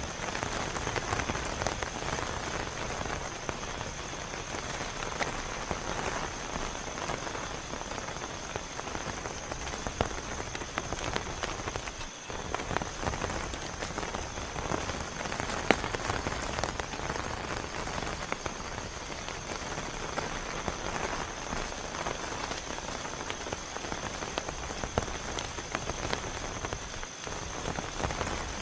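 Heavy rain falling steadily, with many individual drops striking sharply close by, over a thin, steady high-pitched tone.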